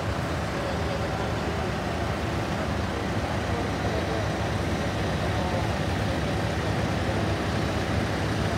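Steady low mechanical drone of running airport machinery, level and unchanging throughout.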